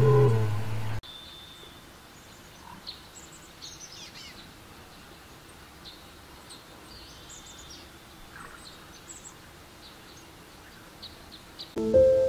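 Faint outdoor ambience with scattered short bird chirps and calls. A deep animal roar cuts off about a second in, and soft music with held piano-like notes begins near the end.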